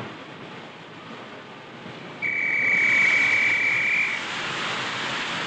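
A whistle blows one steady high blast about two seconds long, starting a couple of seconds in, the departure signal for a steam train. A hiss of steam escaping from the locomotive's cylinders starts with it and carries on after the whistle stops.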